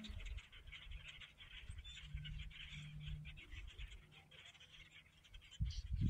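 A large flock of small dark birds chattering and calling together, a faint, dense twittering with no gaps, over a low steady hum.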